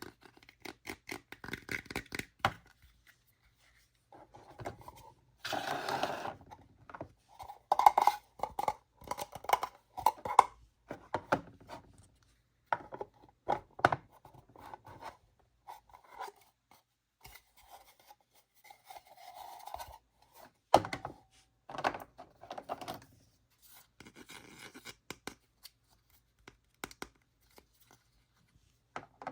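Hands unpacking and handling a plastic toy playset and its packaging. Irregular scrapes, scratches and light knocks come in short bursts, with a longer rustling or tearing burst about six seconds in.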